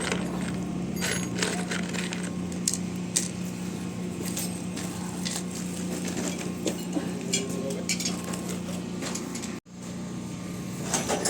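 Scattered light metallic clinks and clicks over a steady low hum, cut off briefly by a moment of silence about two-thirds of the way through.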